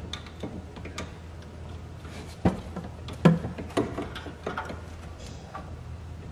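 Scattered clicks and light knocks of tools and parts handled down in a car's engine bay during a spark plug change, at uneven intervals over a steady low hum.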